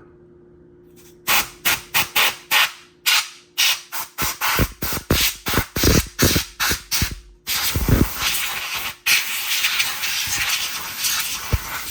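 Can of compressed-air spray duster blowing dust off a microwave keypad: a quick series of short hissing puffs, about three a second, then a long continuous blast, briefly broken once.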